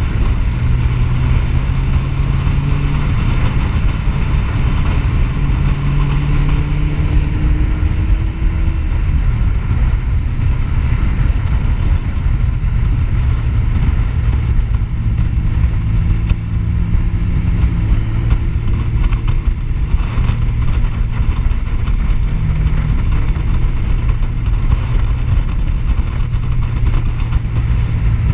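Sport motorcycle's engine running at speed, heard from the rider's own bike, under loud wind rumble on the microphone; the engine note rises slowly several times as the rider accelerates out of bends.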